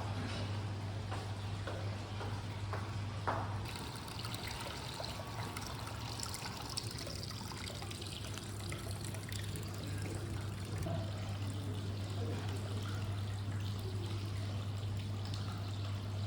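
Water running and trickling steadily, with a low steady hum underneath.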